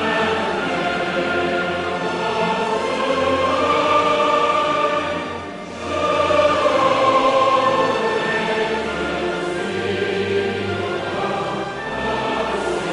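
Choral music: a choir singing long, sustained notes, with a brief drop in level a little past halfway.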